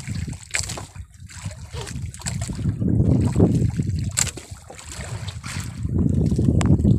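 Water splashing and sloshing against the side of a small fishing boat, with scattered knocks and clicks from handling at the gunwale.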